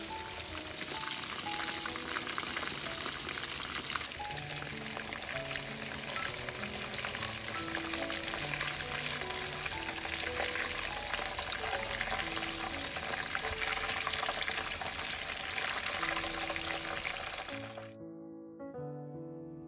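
Chicken pieces deep-frying in hot oil in a pan, a dense steady sizzle, over soft background music; the sizzle cuts off suddenly near the end, leaving only the music.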